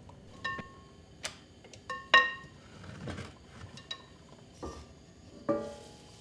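Dishes clinking: a series of light clinks with short ringing tones, the loudest about two seconds in.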